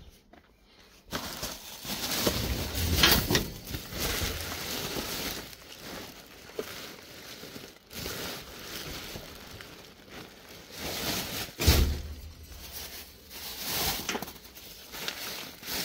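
Plastic bin bags rustling and crinkling as they are pulled about and rummaged through in a large metal waste bin, with a dull thump about three-quarters of the way through.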